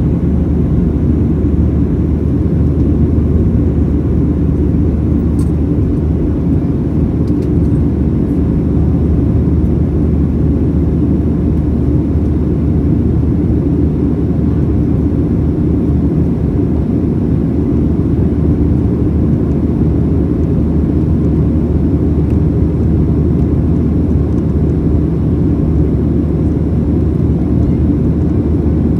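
Steady low rumble of a Boeing 737-700's CFM56 jet engines and the airflow, heard inside the cabin during the climb after takeoff.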